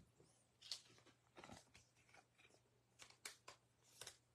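Near silence, with a few faint short clicks and rustles of trading cards being handled.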